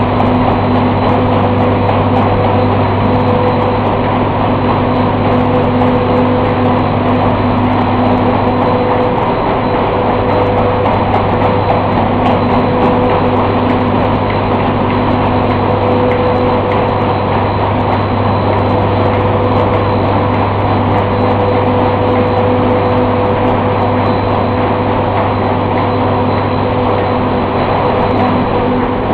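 Twin-screw extruder snack production line running: a steady, unchanging machine drone with a constant hum under it.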